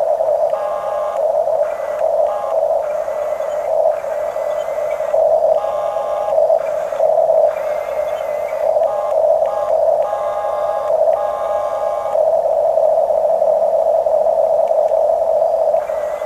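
Electric motors and plastic gearboxes of a Huina radio-controlled construction model whining steadily. Extra higher-pitched motor whines cut in and out in short stretches as different functions are worked.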